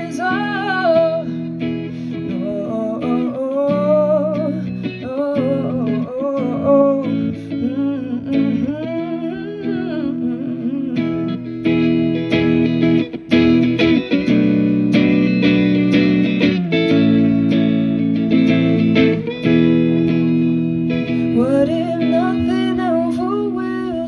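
Solo female singer with electric guitar. For the first ten seconds or so she sings sliding lines over guitar chords. Then the guitar plays chords alone, and her singing comes back near the end.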